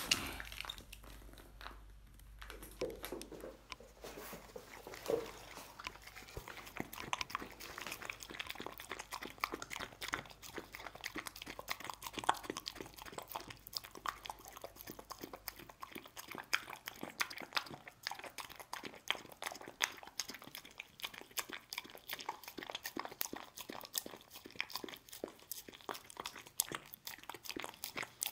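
A dog licking and eating churu lickable paste treat off a wooden board: a rapid, irregular run of wet tongue smacks and mouth clicks.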